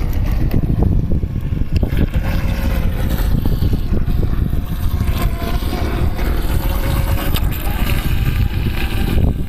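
Wind noise on the microphone, with the faint hum of a small motorboat passing across the water in the middle.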